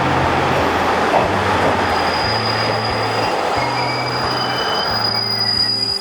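Running noise of a two-car diesel train on the JR Hanawa Line, heard from inside the car: a steady rumble of wheels on rail. A thin, high wheel squeal comes in about two seconds in and holds, as on a curve.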